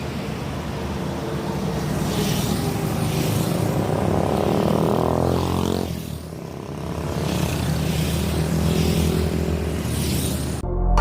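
Motorcycle engine running under way, its pitch climbing as it accelerates, dropping at a gear change about six seconds in, then climbing again.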